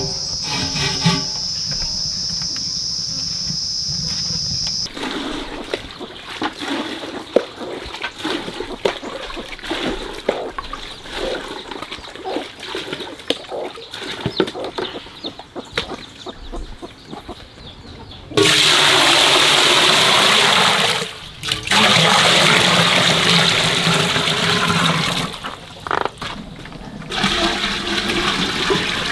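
Insects trill steadily for the first few seconds. Then comes scattered clatter and splashing of water into a plastic basin from a water tank's tap. Past the middle, the water runs loud and steady for several seconds, with a brief break.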